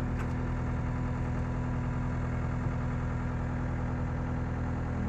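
CAT skid steer loader's diesel engine idling steadily.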